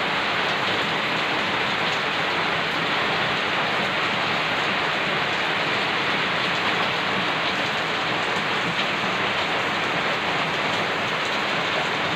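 Heavy rain falling steadily on a wet concrete yard and leafy plants: a dense, even hiss of rain.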